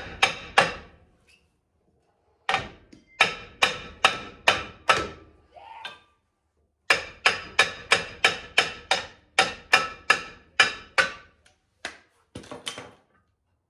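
Hammer blows on a stuck steel brake drum of a 1970 International Scout, each strike ringing metallically. They come in bursts of about two to three blows a second with short pauses between, as he tries to knock the drum loose from the hub.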